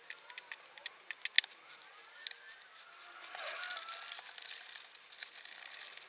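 Light clicks and taps from handwork on a circuit board. From about three seconds in comes a stretch of rustling, scrubbing noise, likely the board being cleaned of flux residue.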